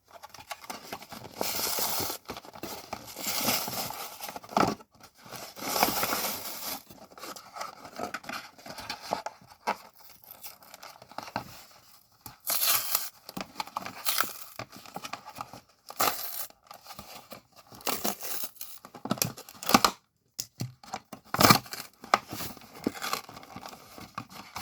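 Plastic blister packaging and its cardboard backing being torn and crinkled open by hand, in irregular bursts of tearing and crackling with short pauses.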